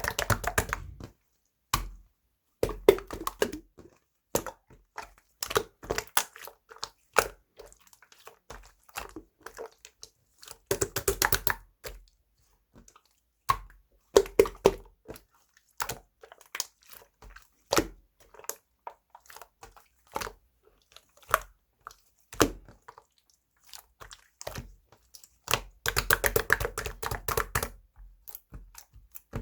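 Close-up handling noises: irregular taps and clicks, with a few longer spells of crinkling and rustling, as of plastic or paper being handled.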